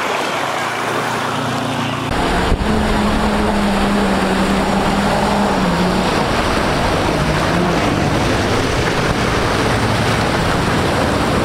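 Steady rush of floodwater with wind buffeting the microphone, joined about two seconds in by a motor's hum that dips slightly in pitch around six seconds.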